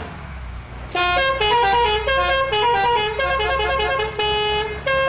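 A bus 'telolet' horn: a set of air horns playing a quick tune of stepped notes, sometimes several at once, starting about a second in. It breaks off briefly near the end and starts again. The bus engine idles underneath.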